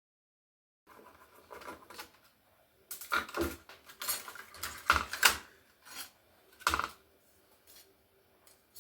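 Metal scrap parts from a stripped laptop clinking and clanking as they are handled and set down: a run of separate sharp knocks and clicks, loudest and most frequent in the middle of the clip.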